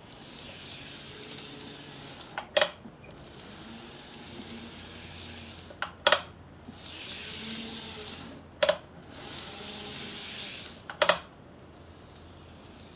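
TOMIX N gauge model diesel locomotive with a flywheel motor, its motor whirring as it runs on the track, the sound swelling and fading several times. Four sharp clicks come about every three seconds.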